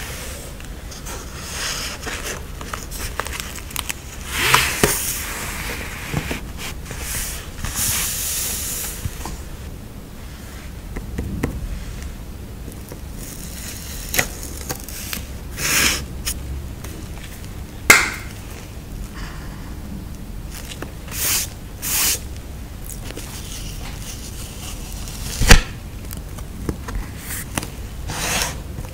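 Stickers and paper handled close to the microphone: rustling, sliding and peeling, with scattered light taps and clicks, the sharpest a little before the end.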